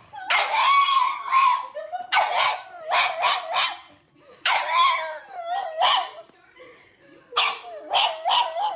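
Pug howling and yowling in about four short bouts, each a run of quick calls whose pitch wavers up and down.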